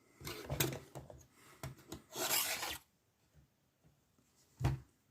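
Handling of a Basta padlock and lock picks: a few scraping and rubbing sounds, the longest about two seconds in, then a single knock near the end.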